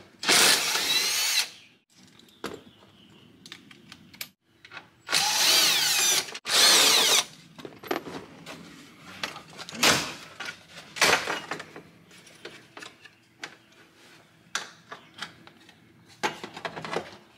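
Cordless impact driver spinning fasteners out of a truck's lower dash panel, run in three main bursts of a second or so, then a few shorter blips. Small clicks and rattles of plastic trim being handled come between the bursts.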